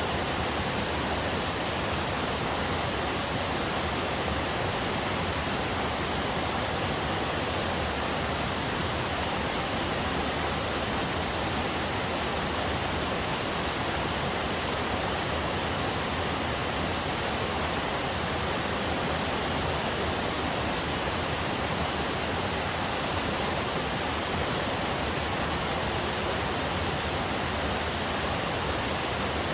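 Waterfall on a forest river: water falling and rushing in a steady, unbroken spray.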